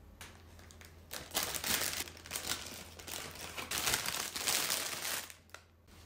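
Crisp lettuce leaves crackling and rustling as they are handled and laid on a sandwich. It starts about a second in and stops shortly before the end.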